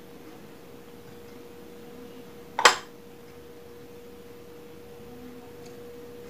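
A steady faint hum on one tone throughout, with one short loud crunch of a bite into food about two and a half seconds in.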